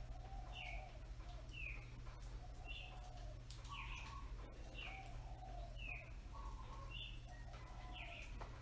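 Early-morning birdsong: short chirps and whistled notes, some falling in pitch, repeating roughly every second, over a low steady hum.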